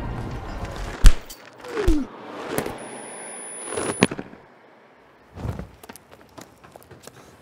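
A fight scene's sound effects: a loud sharp hit about a second in, then a short falling tone and two more sharp hits, with a thin high steady tone between the last two. After a brief silence comes a thud, then light scattered footfalls.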